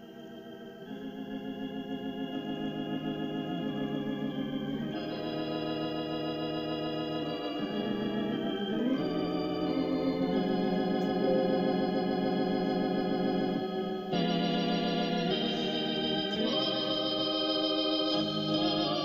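Background music of slow, sustained organ chords with a wavering tremolo, fading in at the start and growing louder, the chord changing every few seconds.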